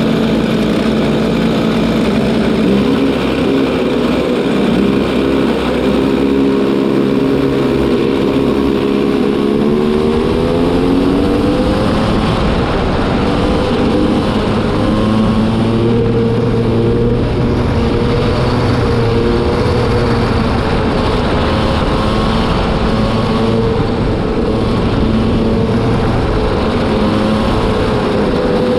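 Racing kart engine running hard on track, heard from on board the kart; it is a new engine being run in. Its pitch climbs steadily about a third of the way in, then rises and falls with the throttle through the corners.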